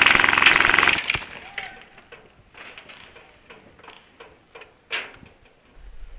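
Airsoft gun firing a long full-auto burst at a rapid, even rate that stops sharply about a second in. Scattered quieter clicks and ticks follow, with one sharper click near the end.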